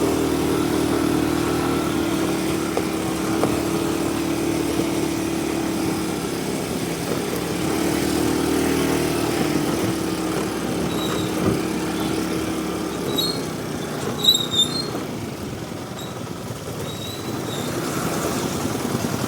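Aprilia SR 160 scooter's single-cylinder engine running at a steady, even pitch, easing off after about 13 seconds, with a few short high chirps and clicks about 14 seconds in.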